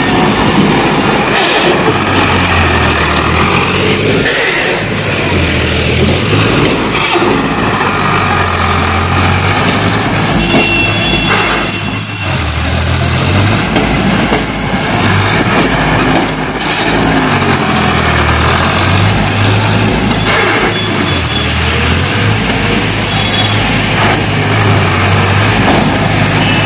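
Eicher 551 tractor's three-cylinder diesel engine working hard under load while its rear rotavator churns dry soil. The low engine note rises and falls over and over as the load changes.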